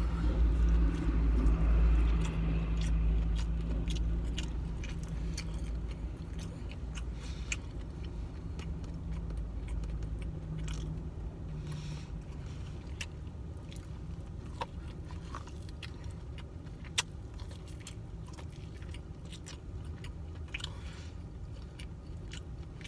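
A person chewing camel meat and rice close to the microphone, with scattered small mouth and utensil clicks, over a steady low rumble that is louder in the first few seconds.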